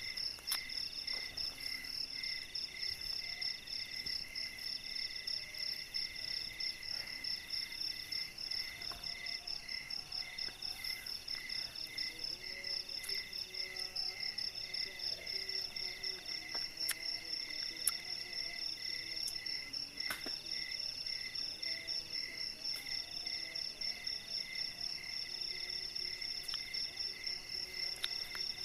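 Night chorus of crickets and other insects in the forest: a steady high trill, with a slower pulsing chirp that repeats about once a second. A few faint clicks stand out in the second half.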